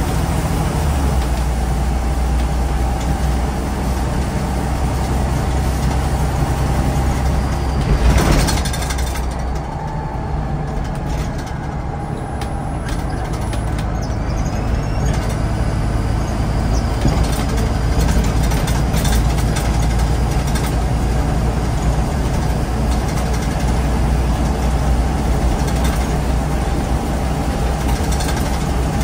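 Scania N94UD OmniDekka double-decker bus running, its diesel engine droning steadily. A short hiss of air comes about eight seconds in, typical of the air brakes. The engine note then falls away for a few seconds and builds again as the bus picks up.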